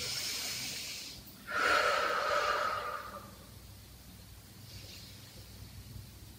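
A woman breathing deeply: a soft inhale through the nose at the start, then a longer, louder exhale through the mouth from about a second and a half in. A fainter breath follows near the end.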